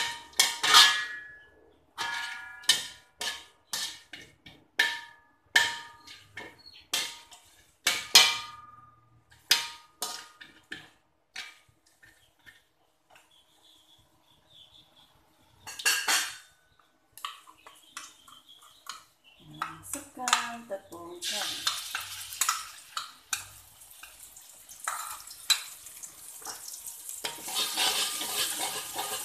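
A metal spatula knocking and scraping against a metal wok, each strike ringing briefly, as cinnamon sticks and star anise are pushed around in the oil. About twenty seconds in a sizzle starts and grows louder: curry paste frying in the hot oil as it is stirred.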